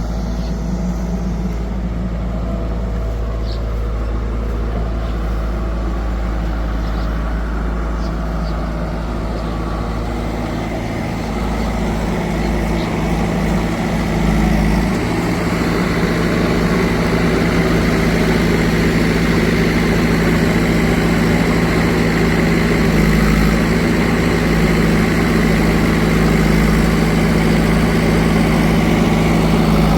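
Diesel engine of the heavy farm machinery running steadily, picking up and working harder about halfway through, then holding at the higher level.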